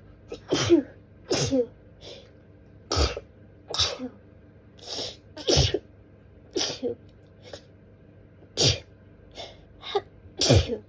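A woman's sneezing fit: about ten short sneezes in a rapid run, roughly one a second, some coming in quick pairs. The fit is brought on by dust tickling her nose.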